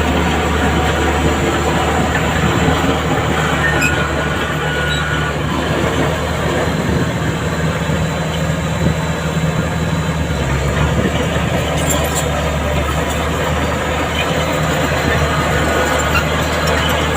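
Heavy diesel earth-moving machinery running steadily under load, a loud, continuous low engine drone with mechanical rattle.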